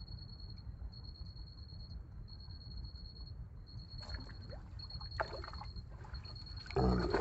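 Faint outdoor ambience: a steady low rumble with a thin high buzz that comes and goes about once a second, a few light clicks midway, and a louder rush of noise starting near the end.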